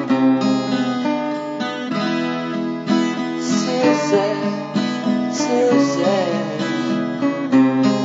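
Background music: an acoustic guitar strumming steady chords.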